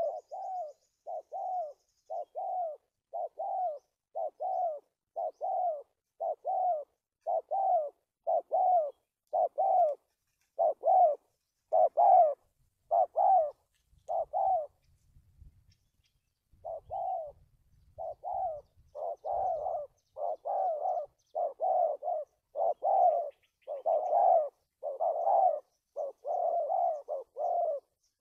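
Spotted dove cooing: a long run of short, evenly repeated coo notes. The coos break off for about two seconds around the middle, with faint low knocking in the gap, then resume.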